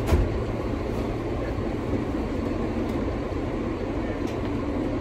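New York City subway F train car running, heard from inside the car: a steady rumble with a sharp knock right at the start and a few faint clicks later on.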